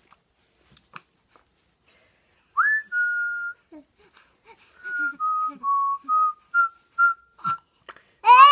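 Whistling: a rising note held briefly, then a run of short steady notes a little lower, like a simple tune. Near the end comes a short, loud high-pitched yell.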